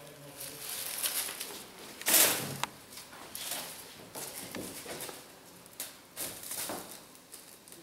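Pieces of dry tree bark rustling and knocking together as they are handled in a plastic-lined basket, with a crinkle of plastic: a string of short scrapes and knocks, the loudest about two seconds in.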